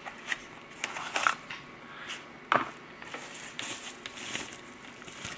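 Small cardboard box being opened by hand, a few sharp clicks and scrapes of the card, then a plastic bag crinkling as it is unwrapped from about three seconds in.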